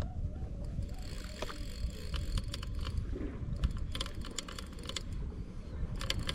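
Daiwa Saltiga 4000H spinning reel cranked under load while playing a little tunny, giving a run of irregular clicks and ticks. Wind rumbles low on the microphone.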